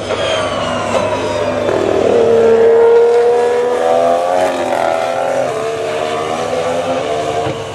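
McLaren-Honda Formula 1 car's 1.6-litre turbocharged hybrid V6 running on track, its engine note falling as it slows over the first two seconds, then climbing again as it accelerates, dipping and holding steady. This is the first-year Honda power unit, whose thin note the uploader calls weak.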